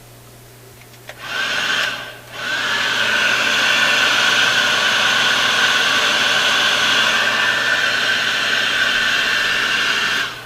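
Electric heat gun blowing, a steady rush of air with a high fan whine. It switches on about a second in, cuts out briefly near two seconds, comes back on and runs until it shuts off just before the end.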